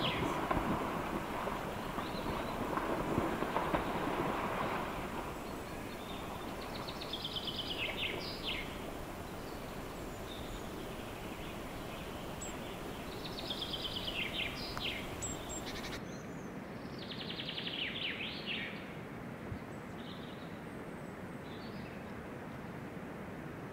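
A moose splashes and kicks through shallow lake water for the first few seconds. Then a songbird repeats a short trilled song ending in falling notes every six or seven seconds, over a steady outdoor hiss.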